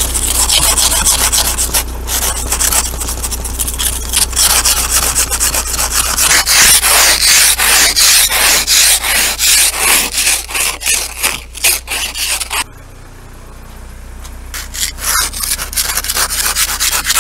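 Plastic ice scraper scraping frost and ice off a van's windows in quick, repeated strokes, over a steady low hum. The scraping stops abruptly about thirteen seconds in, then comes back in a few short strokes near the end.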